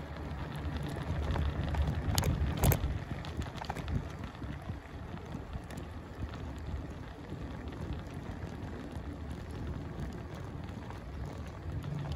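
Wind rumbling on the microphone with a hiss of open-air noise, and a few sharp clicks about two and two and a half seconds in.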